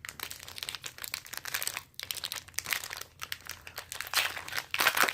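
Foil Pokémon TCG booster pack wrapper crinkling as it is handled and opened, an irregular run of crackles that gets busiest near the end.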